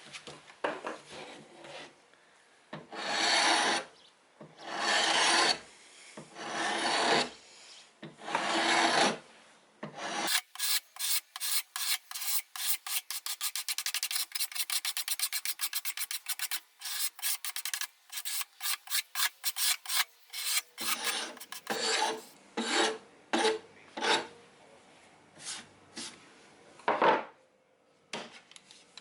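Hand file rasping on a steel axe head. There are a few long, slow strokes, then from about ten seconds in a long run of rapid, even short strokes, then slower, irregular strokes again in the last third.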